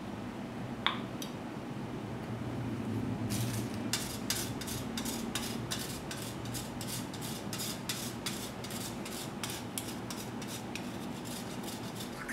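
Hard cheese being grated over a plate of pasta: a quick, even run of short scraping strokes, about three a second, starting a few seconds in.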